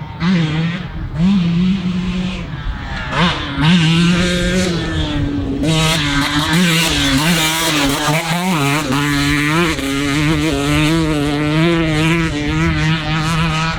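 Husqvarna TC125 single-cylinder two-stroke motocross bike being ridden, its engine revving up and down again and again with throttle and gear changes. From about six seconds in it gets louder, with more hiss over the engine note.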